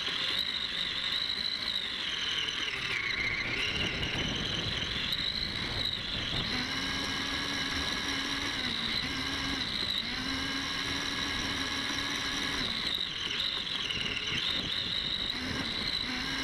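Electric drive motor and gears of a self-steering RC car whining, the pitch rising and dipping as the car speeds up and slows. It is set to slow down while turning and speed up when pointing closer to its target, so the pitch follows its heading. A lower tone joins for several seconds in the middle, over rolling noise from the tyres on grass.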